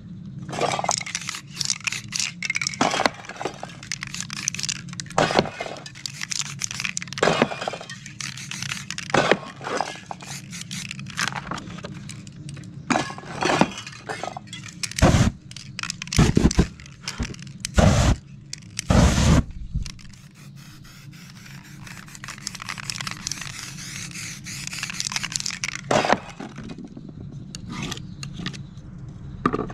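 Handling noise from spray-paint work: irregular knocks, scrapes and clinks, with a few heavier thumps about halfway through, over a steady low rumble. Near the end an aerosol spray can hisses in short spells.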